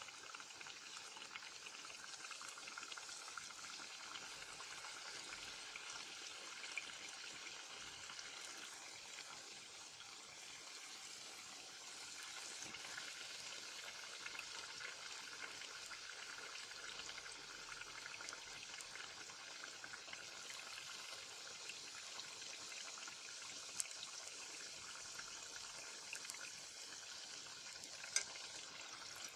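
Dough pockets deep-frying in hot oil in a pot: a steady sizzle of bubbling oil, with a couple of light clicks near the end.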